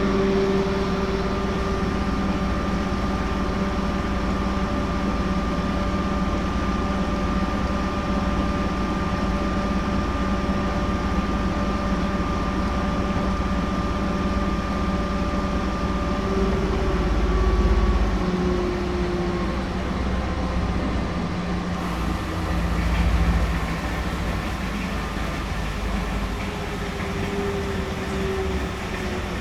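Washing machine running: a steady motor hum with a deep rumble, its tones sliding lower in pitch twice, partway through and near the end.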